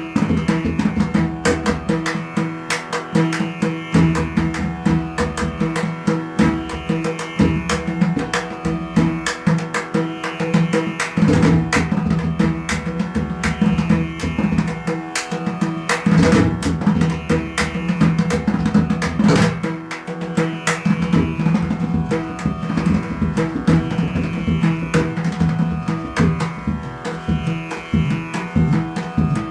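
Indian music with quick, dense drumming over held melodic tones.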